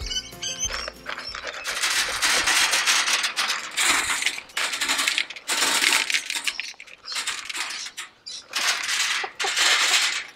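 Dry chicken feed pellets pouring from a tipped container and rattling as they land, in several pours with short breaks between them.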